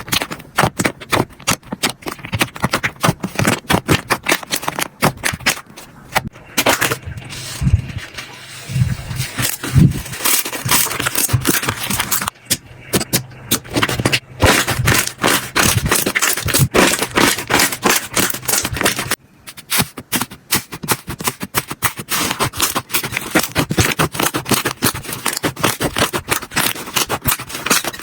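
Slime being squeezed, poked and pressed by hand: dense runs of crackling, popping clicks, with two brief pauses.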